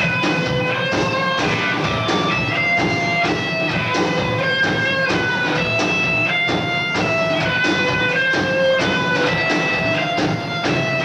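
Live rock band playing an instrumental passage: a melodic electric guitar line of separate notes over a Yamaha drum kit, loud and steady.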